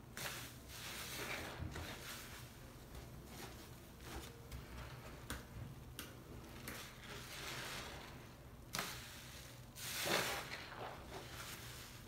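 Soap-soaked foam sponges being squeezed and wrung in thick suds, giving a wet squishing in repeated swells with a few sharp clicks. The loudest squeeze comes near the end.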